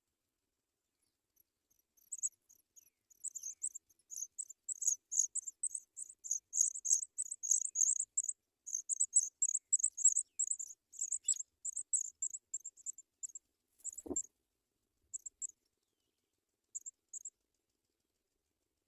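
African pipit nestlings giving thin, very high begging chirps in rapid runs that start a couple of seconds in, crowd together, then thin out and stop near the end. One short soft knock sounds about three-quarters of the way through.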